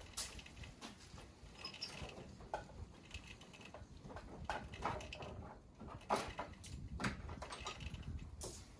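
Metal hand tools being handled while working on bolts: scattered clicks and clinks, with a few sharper knocks about six, seven and eight and a half seconds in.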